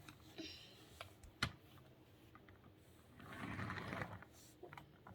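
Small plastic clicks and knocks from a doll on toy roller skates being handled and pushed along, with one sharp knock about a second and a half in and a short scraping rustle around three and a half seconds.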